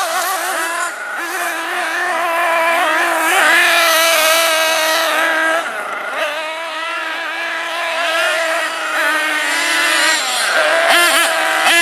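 Small nitro engine of a radio-controlled truggy running at high revs, a high-pitched whine that mostly holds steady, with brief dips and rises in pitch as the throttle is worked.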